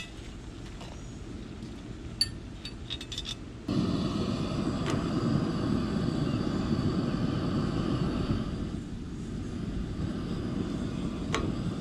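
A few light metal clinks from the cast-iron Dutch oven and its lid lifter as it is lifted off the coals, then, from about four seconds in, the steady rushing of a gas camp-stove burner heating a tortilla on its grate.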